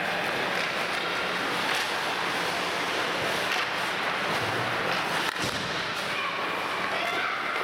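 Youth ice hockey game in play: a steady rushing noise of skates on the ice, with a few sharp clacks of sticks and puck and one louder knock about five seconds in.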